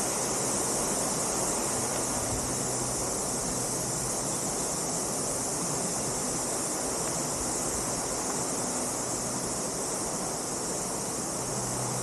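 Steady rushing of a waterfall and stream, with a constant high-pitched insect chorus over it.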